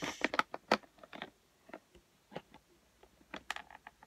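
Makeup brushes being handled: light, irregular clicks and taps as the handles knock against each other and the table, busiest in the first second.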